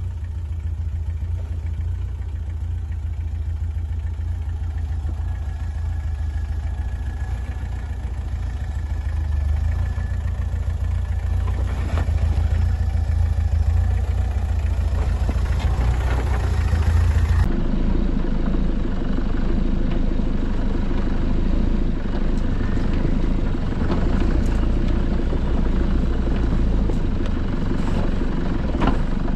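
Toyota Land Cruiser 70-series 4x4 engine running at low revs under load as it crawls up a rocky track, a steady low rumble with a few knocks of tyres and underbody on rock. About 17 seconds in the sound cuts to a 4x4's engine and drivetrain heard from inside the cab while driving a forest track.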